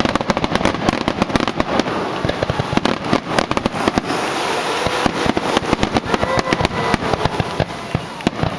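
Fireworks finale: aerial shells bursting in rapid, unbroken succession, several bangs a second, with crackling between them.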